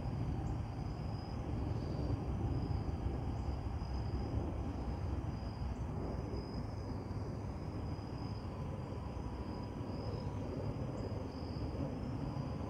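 Steady insect chorus, a continuous high trill that wavers slightly, over a low steady rumble.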